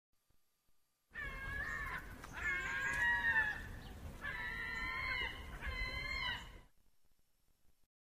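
Four drawn-out, wavering animal calls in quick succession, each bending in pitch and dropping at the end, with a low rumble beneath.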